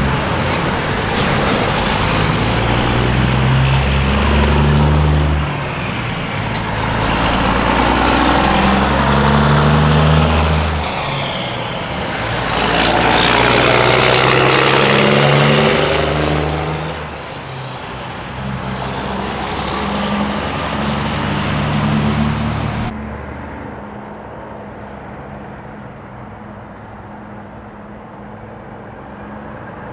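Diesel semi-truck accelerating through its gears: the engine note climbs in each gear and drops back at each upshift, about four times. Then it settles to a quieter, steady drone.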